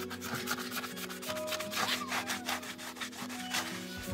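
A stiff hand brush scrubbing a horse's hoof wall in quick strokes, about four a second, over background music.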